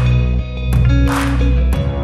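Instrumental background music: held chords with a recurring beat.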